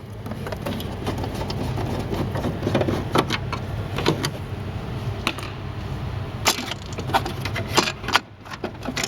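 Scattered clicks and knocks of hard plastic and metal parts being handled as a voting machine's casing is taken apart, over a steady low hum.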